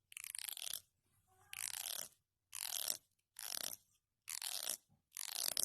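A comb's teeth being rasped, six strokes about a second apart, each a short dry rattling scrape: the 'comb sound' that makes cats lick their lips and gag.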